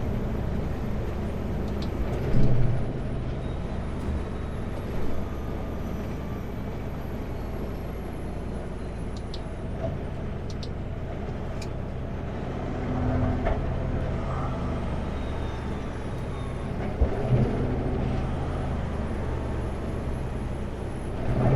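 Kenworth W900L semi truck's diesel engine running steadily with road noise, heard inside the cab, with a few brief louder knocks and bumps.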